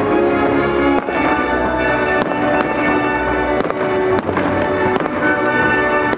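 Fireworks going off: a string of sharp bangs, about one or two a second, over loud music with long held notes.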